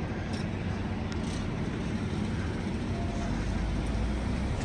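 Steady low rumble of a motor vehicle running, with a few faint ticks in the first second or so.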